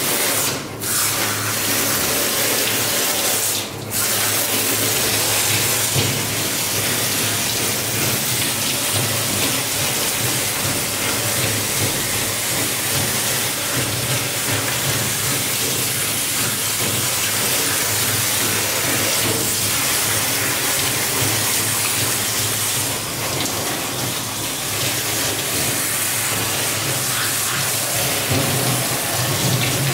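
Handheld shower sprayer hissing and splashing steadily as it rinses a Rottweiler's wet coat in a stainless steel grooming tub, with two brief breaks in the spray within the first four seconds.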